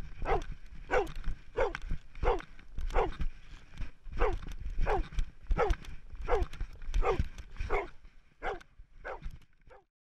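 Search-and-rescue dog barking repeatedly, about one and a half barks a second, each bark falling in pitch, over a low rumble of wind and movement.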